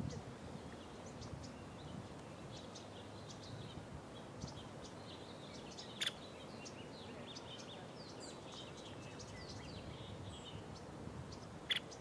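Faint, scattered high chirps of small birds. Two sharp single taps stand out, one about six seconds in and one near the end.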